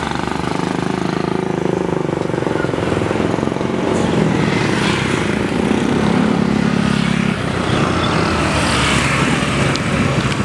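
Street traffic: vehicle engines running, at a steady level throughout.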